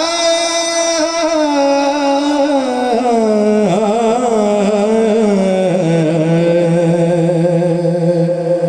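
A man's voice singing a naat into a microphone: one long, wordless melismatic phrase that slides slowly down in pitch and settles on a low held note for the last few seconds.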